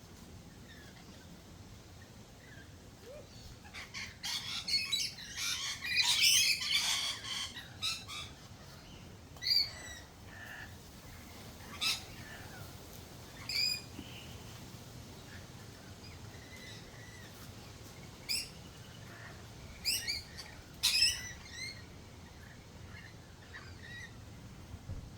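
Wild birds calling: a burst of harsh, chattering squawks for a few seconds, then single short, sharp calls every couple of seconds.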